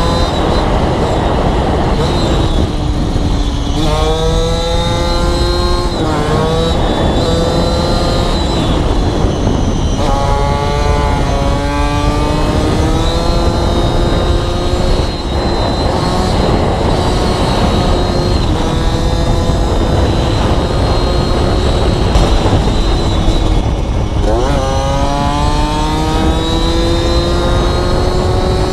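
Aprilia RS4 50's two-stroke single-cylinder engine through a Gianelli carbon exhaust, revving hard on the move: its note climbs steadily in pitch and drops back sharply several times as the rider shifts or rolls off. Heavy wind noise on the microphone runs under it.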